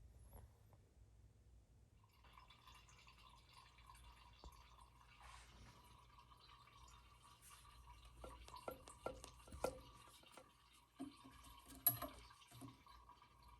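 Quiet room tone with a low hum and a faint steady high tone, then a string of small clicks and taps, the loudest about twelve seconds in.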